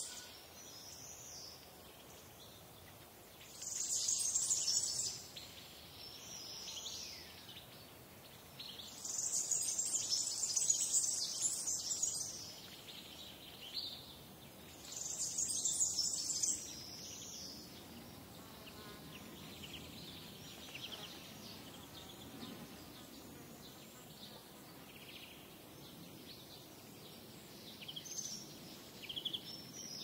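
Small songbirds chirping and whistling, with a loud, high buzzing trill that comes three times in the first half, each lasting one to three seconds; the second half holds only scattered faint chirps.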